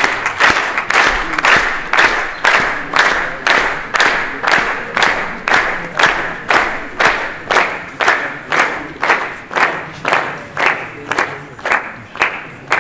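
A crowd clapping together in a steady rhythm, about two claps a second, over a wash of general applause that thins after the first few seconds.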